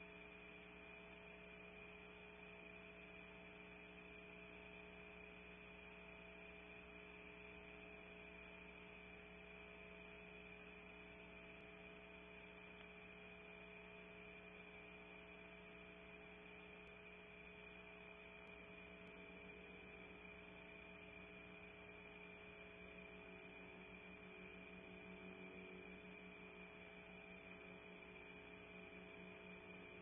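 Near silence: a steady electrical hum with a faint hiss.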